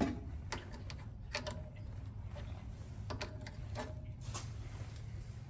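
Irregular light clicks and small metallic clinks of hand tools and fittings being handled, about a dozen over a few seconds, a few with a short ring, over a steady low hum.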